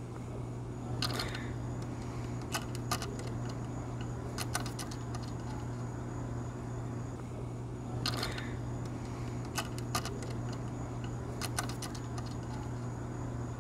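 Small metallic clicks and clinks as a stainless nut and angled washer are fitted and hand-turned onto a cable railing's threaded end fitting against a wooden post, in short clusters over a steady low hum.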